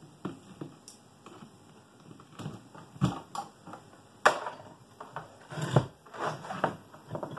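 Tools and parts being handled on a wooden workbench: scattered clicks, knocks and rustles, with a sharp knock about four seconds in and a cluster of clatter near the end.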